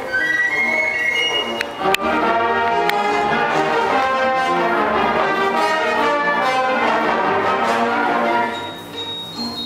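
Orchestral music led by brass, with a full orchestra coming in strongly about two seconds in and easing off near the end.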